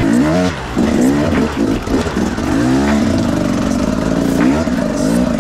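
Enduro dirt bike engine revving up and down in repeated throttle blips, several rises and falls in pitch.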